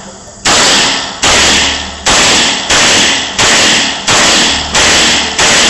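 Pistol fired seven times in steady succession, a little faster than one shot a second. Each shot echoes and rings out in an indoor range.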